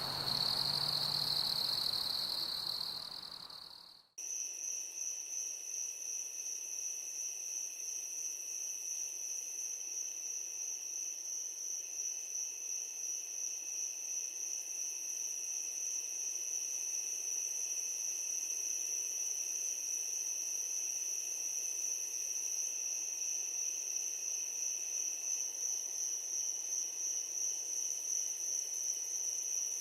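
Night insects, crickets, trilling in a steady high-pitched chorus. About four seconds in, the sound fades out briefly and a different, higher, continuous insect trill takes over.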